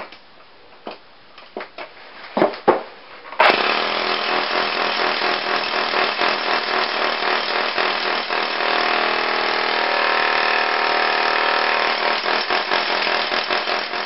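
Corded electric jackhammer breaking into a concrete basement floor slab. A few knocks as it is set, then it starts suddenly about three and a half seconds in and runs as steady, loud, rapid hammering.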